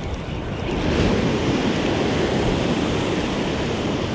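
Ocean surf surging and washing against a rock ledge: a steady rush of whitewater that builds about a second in.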